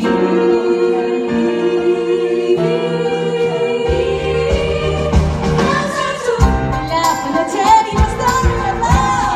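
Female vocal group singing live in close harmony, holding a sustained chord. About four seconds in a low bass accompaniment enters, and near the end beats and a solo voice singing sliding runs come in above the group.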